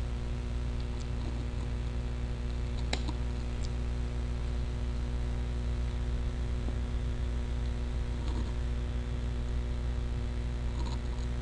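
A few sparse computer-keyboard keystrokes clicking over a steady low hum.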